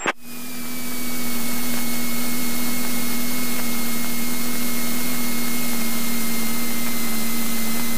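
Cessna 172N stall warning horn sounding one continuous steady tone over cabin wind and engine noise: the wing is at the edge of the stall, near the critical angle of attack.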